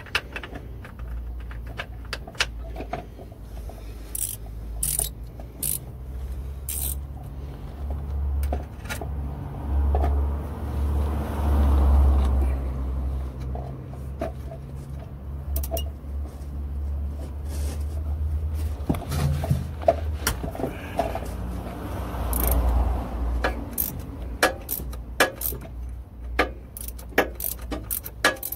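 Metal hand tools clinking and scraping on a Mercedes Sprinter's manual gearbox as a 14 mm hex key and wrench are fitted to the gearbox oil plug and worked on it, many short sharp clicks over a low, uneven rumble.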